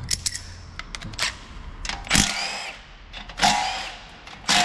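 A handheld power tool run in three short bursts about a second apart, its whine rising and then holding each time. A few light metallic clicks come before the first burst.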